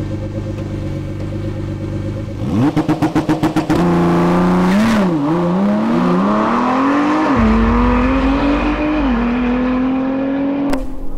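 Ford GT's twin-turbo V6 idling, then revved up to a stuttering limit for about a second. It then pulls away hard, its note climbing and dropping back at three upshifts.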